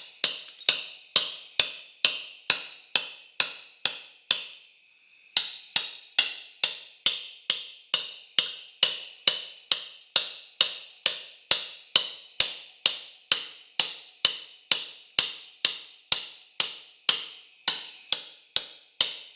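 A hammer tapping in a steady rhythm, about two strikes a second, each a sharp ringing knock, with one short break about four and a half seconds in.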